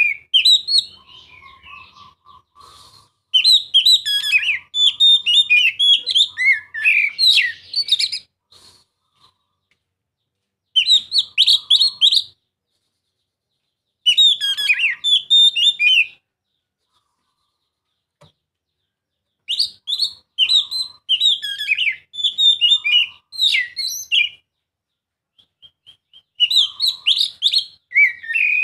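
Male Oriental magpie-robin singing loud bouts of rapid, varied whistled phrases, each a second to several seconds long, broken by pauses of a few seconds.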